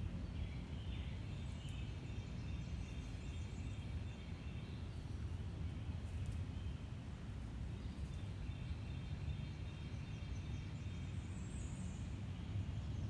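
Woodland ambience: a steady low rumble under birds chirping, in two stretches, one near the start and one in the second half.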